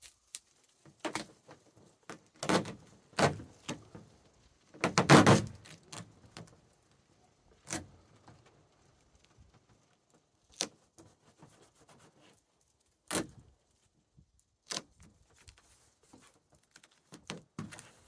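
Duct tape being pulled and torn and pressed onto a cracked plastic roof box shell: scattered rips, knocks and rustles with quiet gaps, the longest and loudest about five seconds in.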